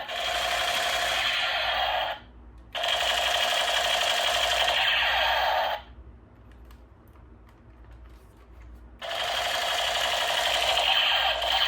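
Toy sound gun's electronic firing effect playing through its small built-in speaker: a thin, rapid rattle in three long bursts, broken off at about two seconds and again from about six to nine seconds in.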